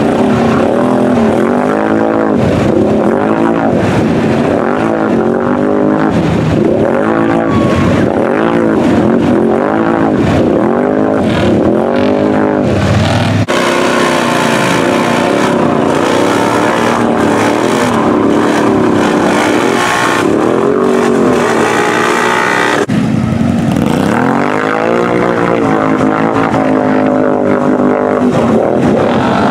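ATV engines revving hard again and again, the pitch rising and falling in quick surges as the quads churn through deep mud holes. The sound jumps abruptly twice, about 13 and 23 seconds in.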